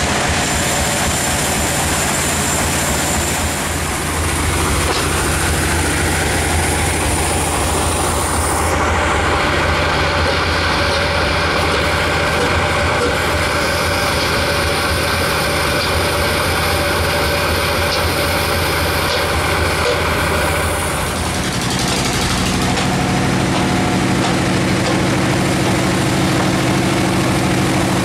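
Large log band sawmill running loud and steady. Its pitch rises over several seconds about a quarter of the way in, holds, then shifts to a lower note about three-quarters of the way through.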